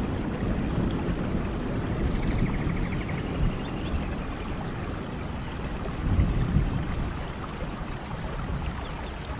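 Steady heavy rain with a low rumble. About every four seconds, a short group of high chirps from a small animal cuts through it.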